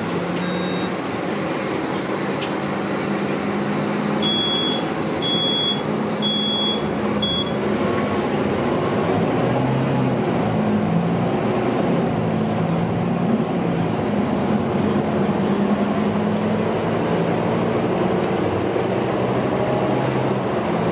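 Scania K310UB bus's five-cylinder diesel heard from inside the cabin, pulling away and accelerating, its engine note rising and stepping down as it changes gear. Four short, high electronic beeps of the door-closing warning sound about four to seven seconds in.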